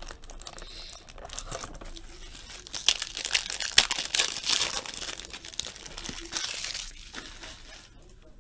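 Clear plastic wrapping crinkling and tearing as it is peeled off a trading card pack by hand; the crackling is densest and loudest in the middle and dies down near the end.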